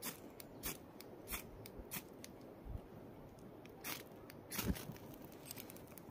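Sharp scrapes of a ferro rod being struck to throw sparks into a dry grass tinder bundle, about eight strikes at uneven intervals, until the tinder catches.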